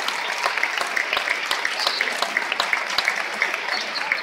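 Theatre audience applauding steadily: many hands clapping at once, with sharp individual claps standing out of the dense patter.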